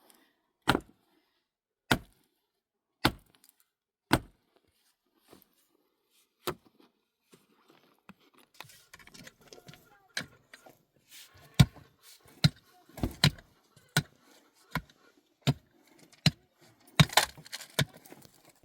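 A tool striking wood in sharp knocks about once a second, then more sparsely. From about eight seconds in, rustling and handling of wood come in with a denser run of irregular knocks, loudest near the end.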